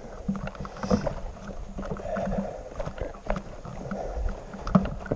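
Footsteps crunching through snow with gear rustling, and a few sharp clicks scattered through.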